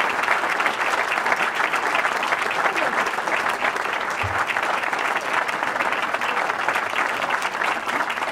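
Audience applauding: many people clapping at once, steady and dense, with no break.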